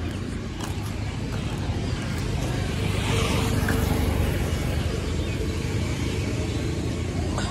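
Small single-cylinder Hero motorcycle engine running steadily at idle. A road vehicle passes about three seconds in, making the sound louder for a moment.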